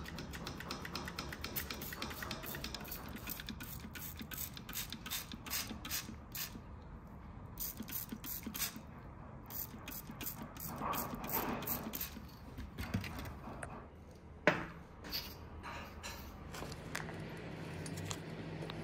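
Hand trigger spray bottle squirting a knife blade in rapid repeated bursts, about four a second, each a short hiss with the click of the trigger. One sharp, louder click comes about three-quarters of the way through.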